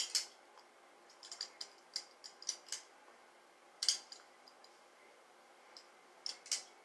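Irregular light clicks and rustles in small clusters from hands working hair cream through long locs, with a metal bangle on the wrist clinking.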